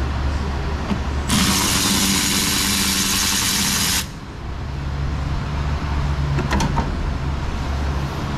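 Air ratchet running for about three seconds, with a loud hiss of exhaust air and a low motor tone, then cutting off sharply as it spins out a fan shroud bolt. A steady low hum runs underneath.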